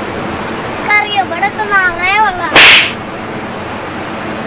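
A child's high voice calling out in wavering, sing-song tones, followed a little past halfway by a brief, loud hiss lasting about half a second.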